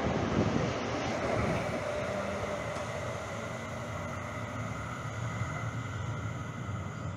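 CTrain light-rail train moving past the platform and away along the track. Its rolling rumble and a steady whine fade gradually as it goes.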